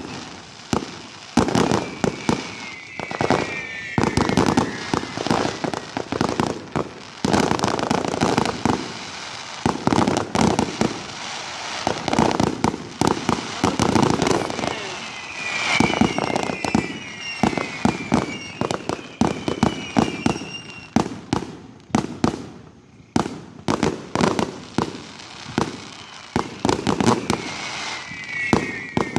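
Fireworks finale: a rapid, nearly continuous barrage of bangs and booms, with shrill falling whistles a few times.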